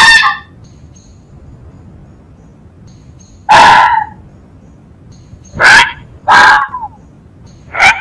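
Fox barking: the end of one short bark right at the start, then four more short barks spread over the second half, two of them close together.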